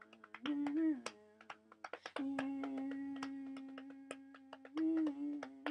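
A person humming a wordless tune, holding one long steady note through the middle and stepping briefly up in pitch near the start and again near the end, over scattered sharp clicks.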